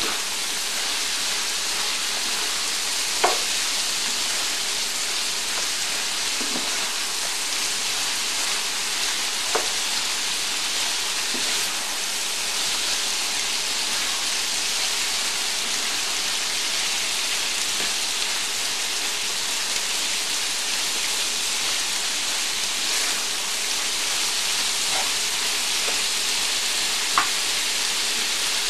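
Cubed beef liver sizzling steadily in hot oil with garlic in a pan, with three brief sharp clicks along the way.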